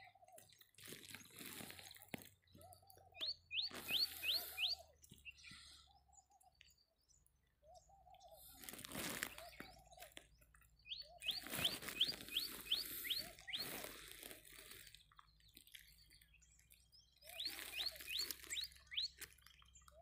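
Birds calling outdoors: a phrase of five or six quick high notes, each sliding downward, comes three times, among many shorter, lower arched calls and bursts of hissing noise.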